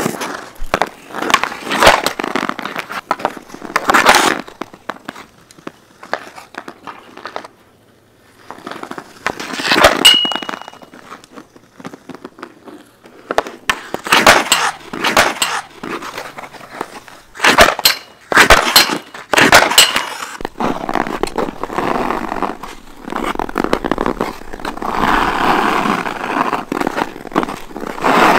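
Hockey skates scraping and carving on backyard rink ice, with sharp clicks and knocks from stick and puck and a brief ring about ten seconds in.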